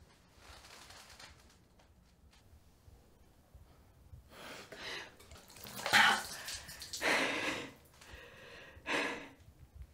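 A woman sips from a glass of water, then lets out a series of short, sharp breathy gasps, the loudest about six seconds in.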